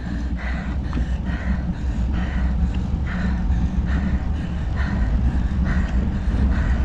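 A cyclist breathing hard on a steep climb, one heavy breath about every second, over a steady low rumble of wind and road on the microphone.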